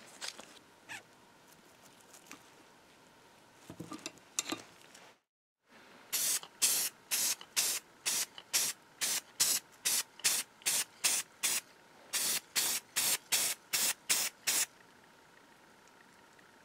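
Primer being spray-painted onto a cast-iron part in about twenty short bursts, roughly two a second, each a hiss of spray that stops sharply.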